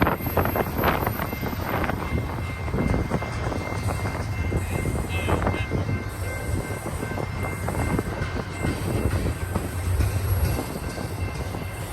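Double-stack intermodal freight train rolling past: a steady low rumble of steel wheels on rail, with sharp wheel clicks over the rail in the first couple of seconds and again midway.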